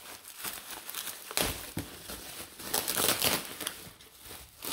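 Bubble wrap crinkling and rustling as a wrapped package is handled and unwrapped, in irregular crackles, loudest about a second and a half in and again around three seconds in.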